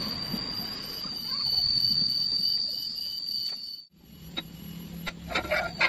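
A steady high-pitched whine over a low rumble, cut off suddenly about four seconds in; near the end a fowl calls several times in quick succession.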